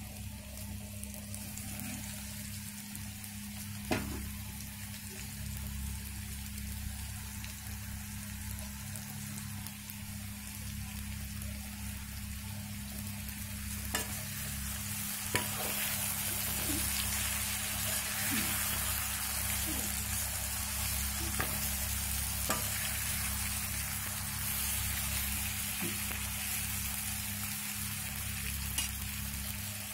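Cut bitter gourd frying in mustard oil in an iron kadhai: a steady sizzle with a spatula stirring and now and then clicking against the pan. The sizzle grows louder about halfway through, once the lid is off.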